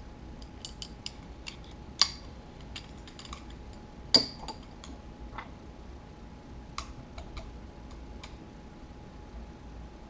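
Small metal clicks and taps of 1911 pistol parts being worked into place by hand, with two sharper clicks about two and four seconds in.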